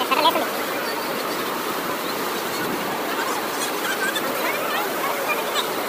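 Floodwater rushing and churning through a street: a steady, even sound of fast-flowing water.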